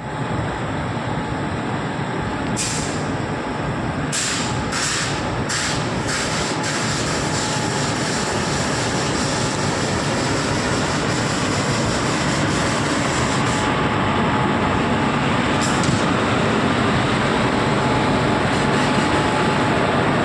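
Passenger train running, a steady rumble and rattle, with several short hissing bursts in the first seven seconds.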